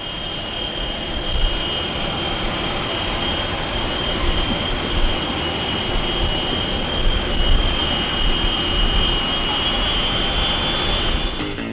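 A machine running steadily: a rush of air with an even, high whine, which cuts off suddenly at the end.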